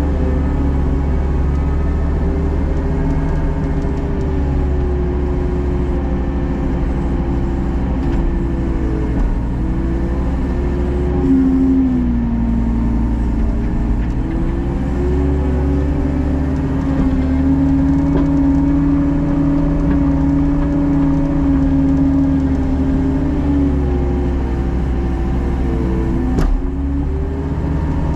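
Diesel engine of an earthmoving machine running steadily at working speed. Its pitch dips briefly and rises again as the load changes, and there is one sharp click near the end.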